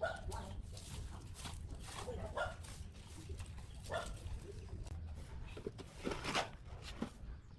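A short broom sweeping dust and debris off a concrete floor in scratchy strokes, with a few short animal calls in the background.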